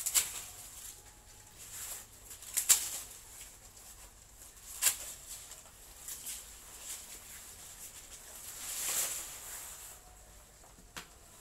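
Long, stiff green leaves rustling and crackling as they are handled and pulled apart by hand: three sharp crackles a couple of seconds apart, then a longer rustling swish about nine seconds in.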